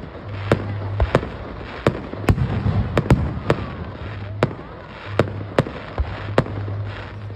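Aerial fireworks bursting: a rapid, irregular string of sharp bangs, roughly two a second, some in close pairs, over a steady low rumble.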